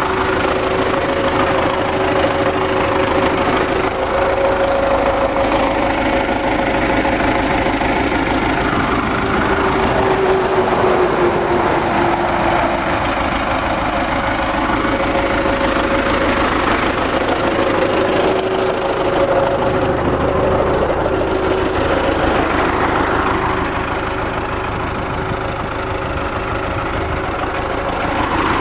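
MTZ tractor's diesel engine running steadily, with a brief dip in pitch partway through and a slight drop in loudness near the end. There is no hum from the freshly repaired rear axle.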